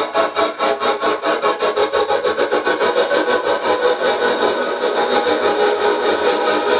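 Live electronic music: a gritty, rasping noise texture pulsing about four times a second over sustained mid-range tones, the pulses growing closer together and evener after about three seconds.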